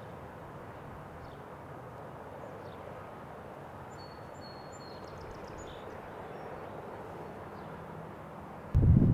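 Quiet outdoor ambience with a steady hiss and a few faint bird chirps about four to five seconds in. Just before the end, a sudden loud low rumble of wind on the microphone starts.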